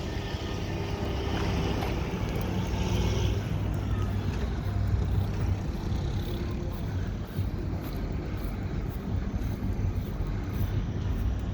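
Steady low rumble of motor vehicles, with wind on the microphone.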